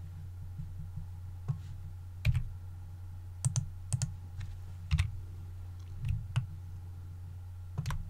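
Computer mouse buttons and keyboard keys clicking, about nine irregularly spaced clicks, over a steady low electrical hum.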